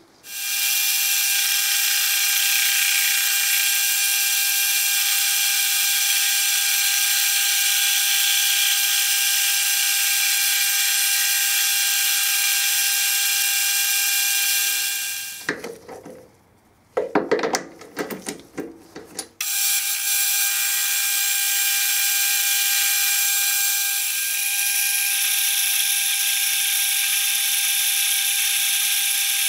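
Metal lathe running under cut with a steady high-pitched whine and hiss as the tool faces and turns a metal disc blank. About halfway the machine stops for a few seconds, with a few knocks and clunks, then runs steadily again.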